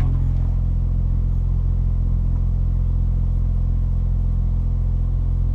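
Supercharged 1.6-litre four-cylinder engine of an R53 Mini Cooper S idling, heard from inside the cabin: a steady, low, even hum.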